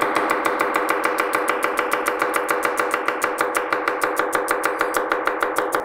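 Chef's knife rapidly slicing garlic cloves on a chopping board: a fast, even run of knife taps on the board, about nine a second.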